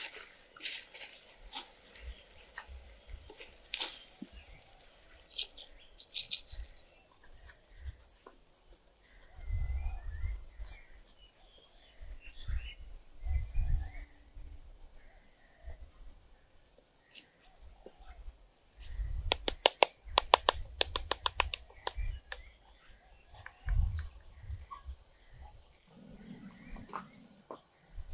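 Steady high-pitched insect drone with scattered sharp clicks and knocks. About two-thirds of the way in comes a quick run of loud clicks, several a second for about two seconds, and there are a few dull low thumps.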